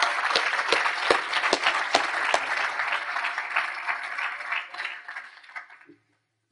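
Audience applauding, a dense patter of claps with a few sharper single claps standing out close by in the first two and a half seconds. The applause dies away about five and a half seconds in.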